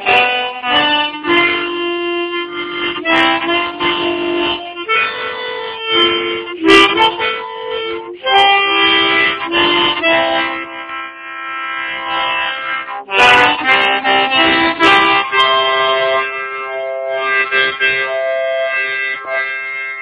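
Harmonica in the key of C playing an improvised Polish folk melody by ear, with several notes sounding together as chords under the tune.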